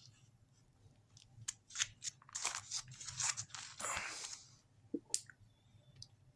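Packaging being handled: a run of crinkles, crackles and short scrapes, with a couple of light clicks near the end.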